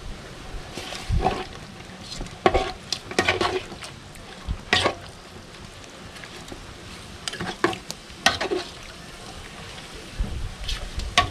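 Metal spoon stirring fish stew in a large aluminium pot, clinking and scraping against the pot at irregular moments, over a steady sizzle from the pot.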